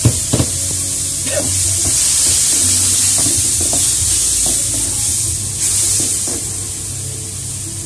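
Chili sauce sizzling in a hot wok over a gas flame, with a wooden spatula scraping and knocking against the wok as it is stirred; two sharp knocks come right at the start.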